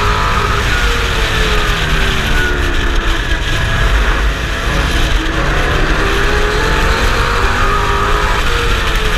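Pro Truck race truck's engine running hard at racing speed, heard on board: the engine note falls and rises again as the truck goes through a corner and back onto the straight, over a constant rush of wind and road noise.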